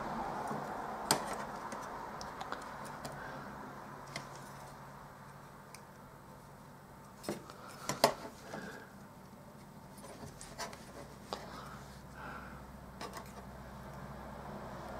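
Scattered small clicks and taps from handling a printed circuit board while pushing capacitor leads into its holes, the loudest few about eight seconds in, over a faint steady hum.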